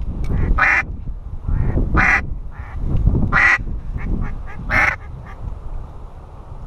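Duck quacking: a series of short quacks, the four loudest spaced about a second and a half apart with fainter ones between, stopping about five seconds in. Wind rumbles on the microphone underneath.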